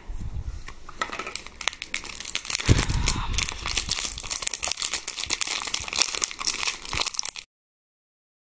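Paper wrapping around a small toy crinkling and tearing as it is unwrapped by hand, in quick irregular crackles that cut off abruptly near the end.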